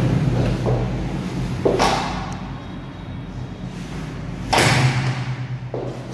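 Sliding glass balcony door banging shut, two heavy thuds about three seconds apart, over a low steady drone.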